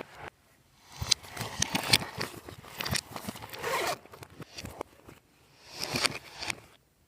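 Glossy slime being squished and stretched by hand, making sticky crackling and popping sounds in two spells: a longer one from about a second in and a shorter one near the end.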